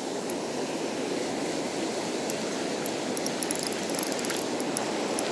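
Steady rush of surf breaking and washing up a sandy beach, with a few faint light ticks about two to three seconds in.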